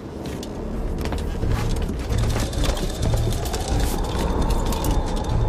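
Low rumble of a storm building, swelling a little after the first second, with faint scattered creaks and a thin rising whine in the second half.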